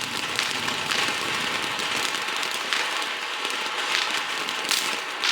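Ground fountain firework spraying with a steady hiss and a dense crackle, with a few sharper pops, the loudest near the end.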